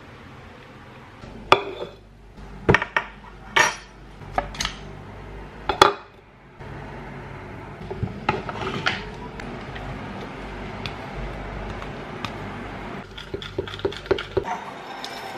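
Tableware being handled: several sharp knocks and clinks in the first few seconds, then a spoon scooping yogurt into a glass bowl and scraping and tapping against it, with a run of light clicks near the end.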